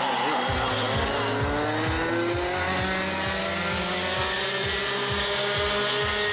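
Several racing go-kart engines running on the track at once. One engine note climbs steadily in pitch as a kart accelerates, then holds.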